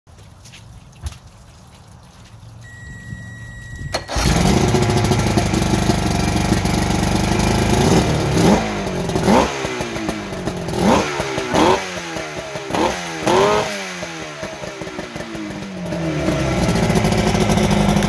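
Chrysler 100 two-stroke outboard motor starting up suddenly about four seconds in, after a steady high tone. It is blipped several times, each rev rising sharply and falling back, then settles into a fast steady run near the end.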